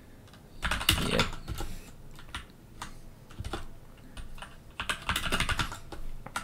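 Typing on a computer keyboard: short bursts of key clicks, with a quick run of keystrokes about five seconds in.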